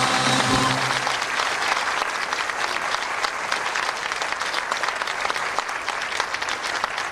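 A held final chord of music stops about a second in, and the audience breaks into steady applause.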